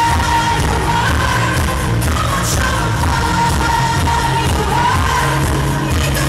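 Live pop song: a woman singing lead into a handheld microphone over a band and a steady heavy beat, recorded from the audience.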